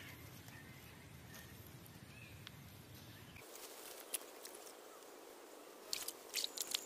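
Faint rustling of leafy branches being handled and pushed into wet mud, with scattered sharp clicks and a short cluster of louder clicks near the end.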